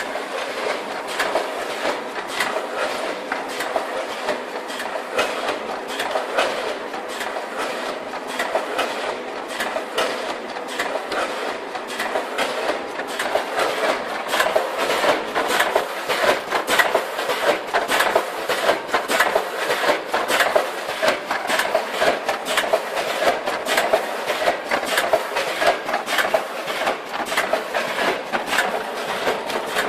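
Vertical form-fill-seal snack packaging machine running, a continuous fast clatter of many small clicks and knocks from its bag-forming, sealing and cutting mechanism. It gets somewhat louder about halfway through.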